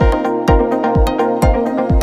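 Background electronic dance music: sustained synth chords over a steady kick drum, about two beats a second.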